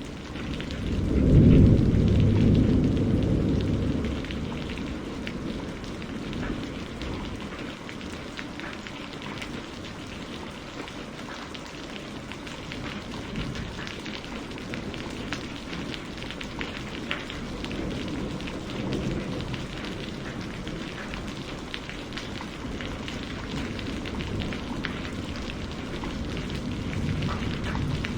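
Steady rain falling, with low rumbles of thunder. The loudest rumble swells about a second in and dies away over a few seconds, and softer rumbles follow later.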